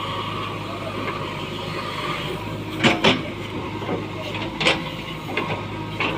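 Backhoe loader's diesel engine running steadily, with a few sharp knocks in the second half, two close together about three seconds in.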